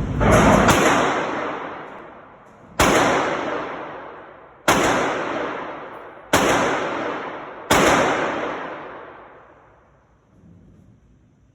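Six loud gunshots: two in quick succession, then four more spaced about a second and a half to two seconds apart. Each shot has a long echoing tail.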